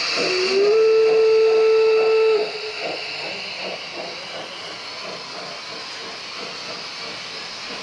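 Gauge 1 model DB class 03 steam locomotive's sound unit: a hiss of steam, then a whistle blast of about two seconds that steps up slightly in pitch just after it starts. Under it and after it, steady rhythmic chuffing as the locomotive runs with its train.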